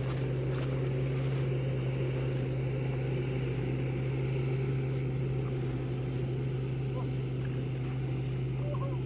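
Engine of a rice-harvesting tractor running steadily at a constant speed, a continuous low drone.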